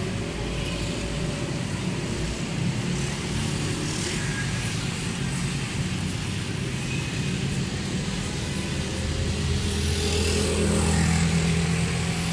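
An engine running steadily, its low drone swelling a little around nine to twelve seconds in.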